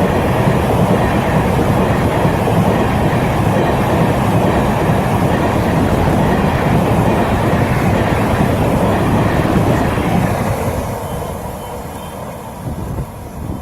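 A train running on the rails with a loud, steady rumble and rattle of wheels and coaches, which dies away from about ten seconds in as the train moves off.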